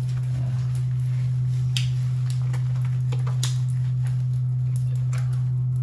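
Soapy hands rubbing shampoo lather into a small dog's wet coat, with scattered wet squishing sounds over a steady low hum.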